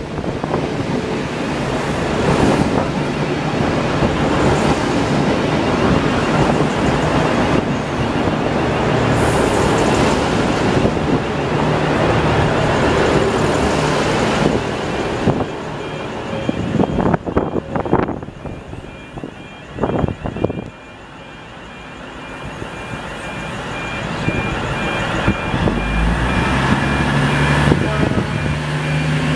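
Two coupled V/Line VLocity diesel multiple units running slowly past close by: a continuous rumble of wheels and underfloor diesel engines, with a few sharp knocks from the wheels around the middle. Near the end the rear car's diesel engine note swells as it goes by.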